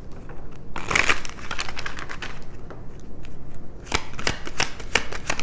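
Tarot deck being shuffled by hand: a rustling burst of cards about a second in, then a quick run of card snaps and clicks near the end.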